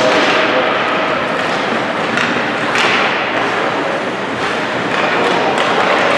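Ice hockey play in an indoor rink: a steady din of rink noise broken by several sharp knocks and thuds of stick, puck and boards.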